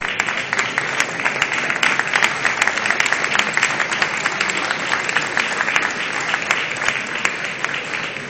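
Audience applauding: many people clapping hands in a dense, steady patter that begins to thin out and die away near the end.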